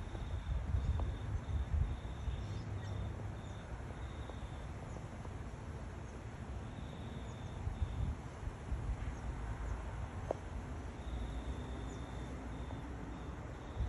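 Insect chirping in runs of short, evenly spaced pulses at one high pitch that stop and start, over a low rumble.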